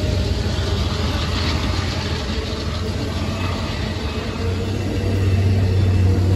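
Amtrak Superliner bilevel passenger cars rolling past at speed: a steady rumble of wheels on the rails, with a low hum that grows louder near the end.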